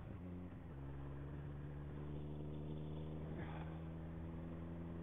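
Motorcycle engine running steadily while riding on a wet road. The engine note shifts in the first half-second and then holds steady, with a brief hiss about three and a half seconds in.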